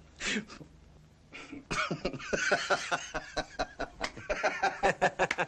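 A man laughing in a run of quick, breathy bursts, about four or five a second, starting a little under two seconds in.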